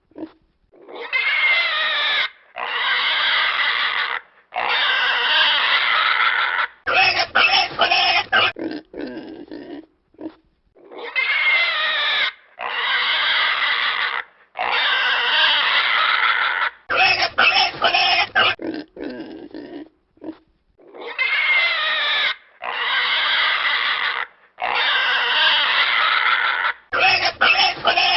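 Pig squealing: three long squeals of wavering pitch, then a quick run of short grunting calls. The same sequence repeats about every ten seconds, three times over, as a looped recording.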